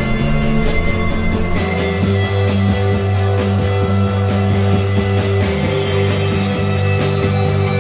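Live rock band playing: electric guitars, electric bass and drum kit together. The low bass notes are held and change pitch twice.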